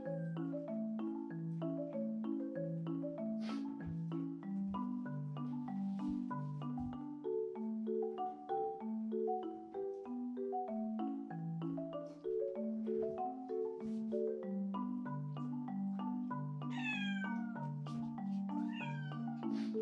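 Light background music of short mallet-like notes runs throughout, and over it a Scottish Straight cat meows a few times: one long meow falling in pitch about three-quarters of the way through, and a shorter one near the end.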